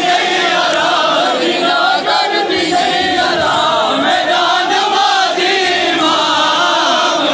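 Many men's voices chanting a Shia noha, a sung lament for Imam Hussain, together in a loud, continuous chant.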